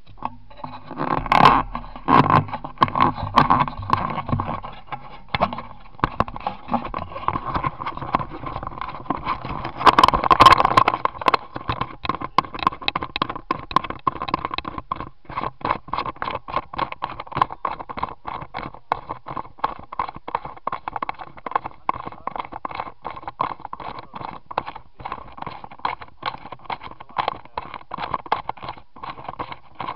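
Close handling noise: a small camera is gripped by hand, then rubs and knocks against clothing as it is carried, making a fast, continuous scraping and ticking with louder rough bursts near the start and about ten seconds in.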